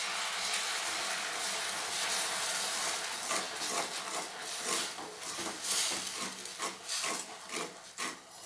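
Sugar, butter and milk syrup hissing and sizzling in a stainless-steel kadai as a wooden spatula stirs it, with frequent short scrapes and taps of the spatula against the pan from about three seconds in.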